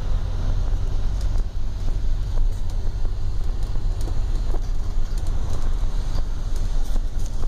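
Moving bus heard from inside the cabin: a steady low engine and road rumble, with a few short clicks or rattles scattered through it.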